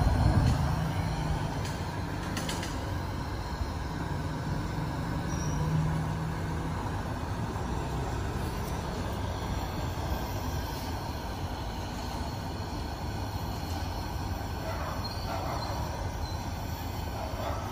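Petromax 250 CP pressure kerosene lantern burning, its burner giving a steady hiss.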